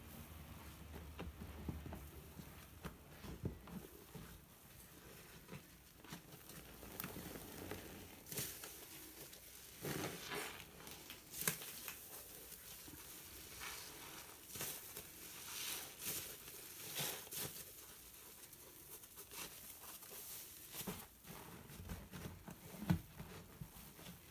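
A long, soap-soaked kitchen sponge squeezed and kneaded by hand in a sink of dish-soap foam: irregular wet squelches and the fizzing crackle of the foam, some squeezes louder than others.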